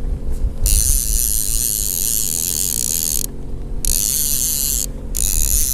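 Fishing reel being cranked to bring in a hooked lake trout on lead core line, close to the microphone: a steady gear whir that stops briefly twice, over a low steady hum.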